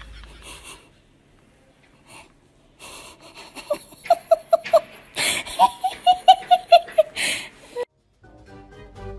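Laughter in quick, wheezy repeated bursts, about four or five a second, after a short quiet spell.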